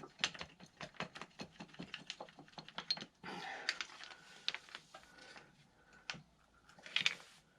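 Rapid, irregular light clicks and knocks, with a short scraping rustle a little over three seconds in and a louder cluster of clicks near the end: hands working at a stuck top-end part on a 1970 Honda Z50 engine that will not pull off.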